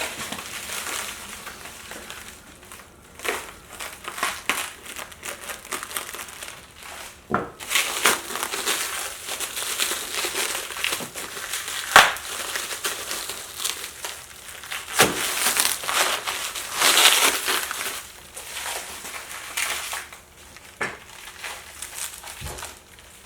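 Packaging being pulled, torn and crumpled by hand off a heavy bench vise, a continual crinkling with a few sharp knocks.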